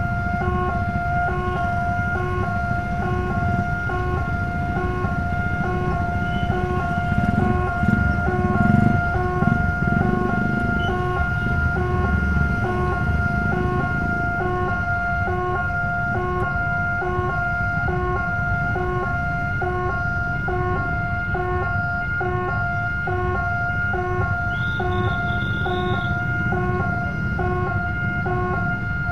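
Railway level-crossing warning alarm sounding without pause: a steady electronic tone with a second tone pulsing on and off more than once a second. Underneath is the low rumble of waiting motorcycles and traffic, which swells briefly around eight to ten seconds in.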